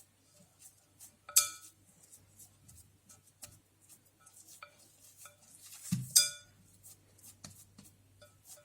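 Utensil clinking against a bowl while gofio dough is mixed, with two sharp ringing clinks, one about a second and a half in and one about six seconds in, and light taps between. A faint steady low hum runs underneath.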